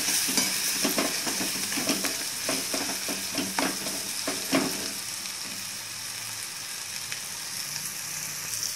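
Onion-tomato masala sizzling in hot oil in a kadhai on a high flame, with a metal spatula stirring and scraping the pan in quick strokes for the first half, then just the steady sizzle.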